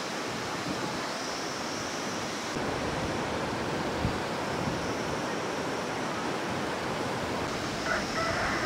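Steady rushing noise of a waterfall.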